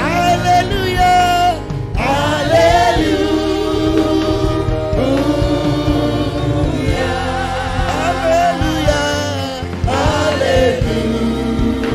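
Gospel worship music: voices singing a sustained, wavering hallelujah melody over a steady keyboard-and-bass accompaniment.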